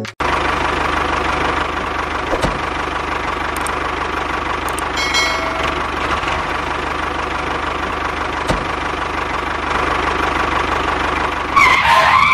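Tractor engine running steadily, with fast, even firing pulses.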